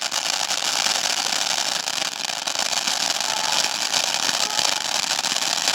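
A firework hissing and crackling steadily for several seconds with no single big bang, as a fountain-type firework does while spraying sparks.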